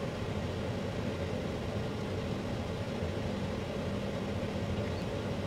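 Steady low hum of room noise, unchanging throughout, with no distinct events.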